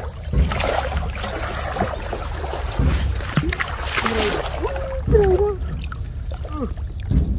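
Water splashing and sloshing as a person wades chest-deep through a muddy pond, in surges that are strongest about a second in and again around the middle.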